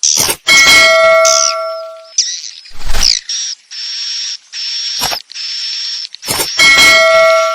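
Swiftlet lure call recording: rapid high twittering and chirping of swiftlets, with a long buzzing twitter in the middle. A bell-like ding rings out near the start and again near the end, fading over about a second and a half.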